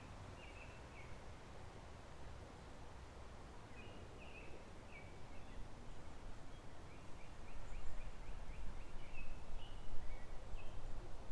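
Steady rush of flowing creek water with small songbirds chirping in short high phrases, including a quick run of repeated notes about seven seconds in. A low wind rumble on the microphone builds in the second half.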